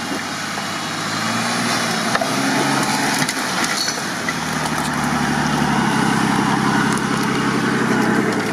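4x4 SUV engine pulling at low speed through mud, getting steadily louder as the vehicle comes close, with a couple of sharp clicks about two and three seconds in.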